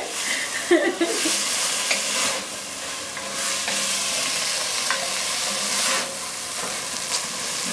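Diced bell peppers, onions and celery sizzling in a hot enamelled pot while a wooden spoon stirs them, with short scrapes of the spoon against the pot under a steady hiss.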